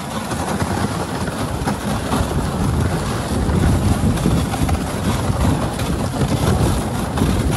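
Dog sled gliding over a snowy trail: a steady rushing rumble from the runners on the snow, with wind buffeting the microphone.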